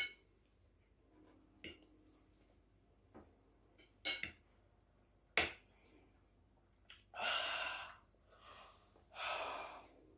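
Forks clicking lightly against plates a few times, then two breathy rushes of air through the mouth, about two seconds apart, from people eating very spicy noodles.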